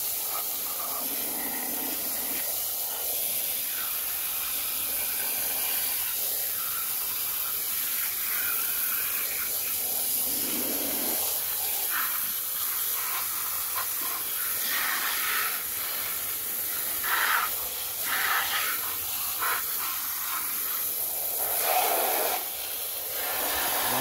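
Water jetting from a hose spray nozzle onto muddy plastic toy trucks: a steady hiss of spray. The splashing grows louder in short spells during the second half as the jet plays over the toys.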